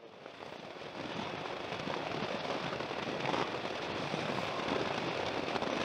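Wind rushing and crackling over the microphone of a moving motorcycle, with road noise underneath. It fades in over the first second or two after a cut, then holds steady.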